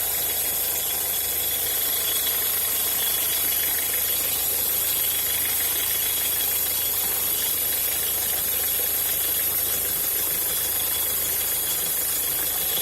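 Peugeot Partner 1.6 engine running steadily, with the strange noise that is the van's fault.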